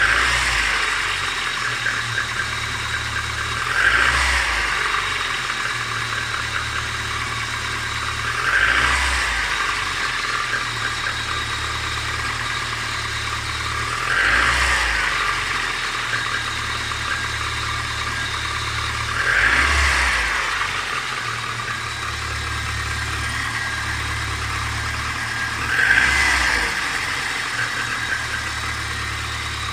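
Car engine running before warm-up with a knock in it, which the owner suspects may be a piston; the throttle is blipped briefly about every five seconds, each rev rising and falling back to idle.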